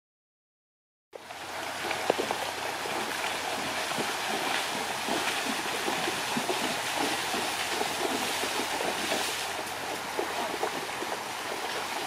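Silence for about the first second, then horses wading through a shallow stream: water splashing around their legs, over a steady running-water rush.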